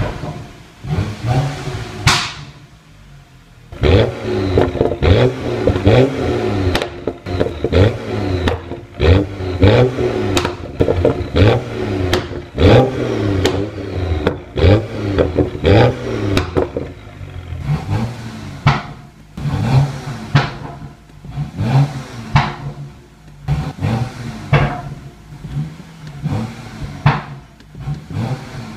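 BMW 335i's N55 3.0-litre twin-scroll turbo straight-six, breathing through an HJS catted downpipe and BMW Performance exhaust, revved again and again while standing in park. Sharp exhaust pops and bangs come as the revs fall. There is a short lull about three seconds in, then a long run of quick blips.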